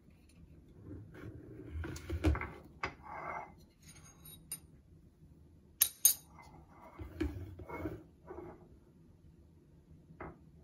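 Knocks and clinks of a plastic electric kettle and a ceramic mug being handled on a kitchen counter while hot water is poured, with two sharp clinks close together about six seconds in.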